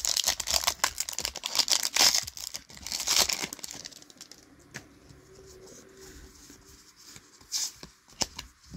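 A foil trading-card booster pack is torn open and its wrapper crinkled, a dense crackling for about the first three and a half seconds. Then comes quieter handling of the card stack, with a few light clicks near the end.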